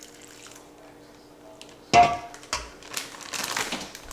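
Kitchen scraps being dumped: a sharp clunk about two seconds in, a second knock, then about a second of rustling and scraping.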